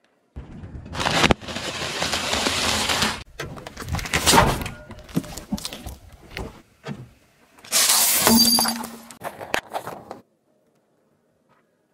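Things crushed under a car tyre: several separate bursts of crunching and cracking. There is a sharp snap about a second in and a loud crack about four seconds in.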